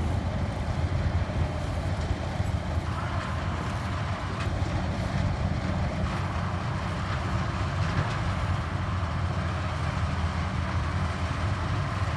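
Combine harvester running steadily while harvesting, an even low drone of its engine and threshing machinery with a hiss above it.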